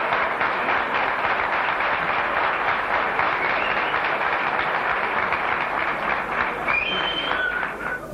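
Studio audience applauding steadily; the clapping stops abruptly right at the end.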